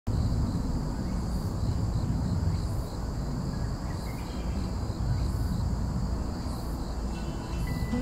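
Outdoor ambience: a steady low rumble, with a faint steady high-pitched ringing above it.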